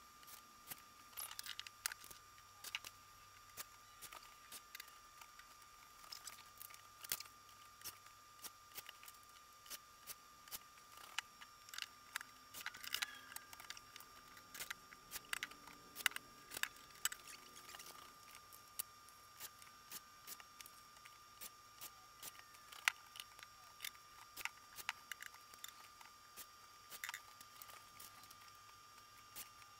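Scattered light clicks and knocks of hand tools and cabinet hinge hardware being handled while kitchen cabinet doors are refitted, over a faint steady high-pitched whine.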